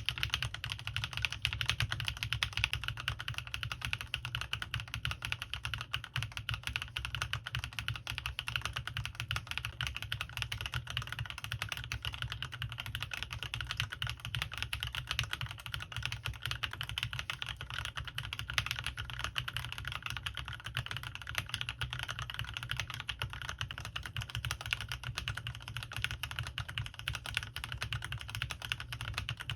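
Fast continuous typing on a CannonKeys Rekt1800 mechanical keyboard with lubed linear switches and PBT keycaps, a dense, unbroken clatter of keystrokes. Several different linear switch types are typed on in turn.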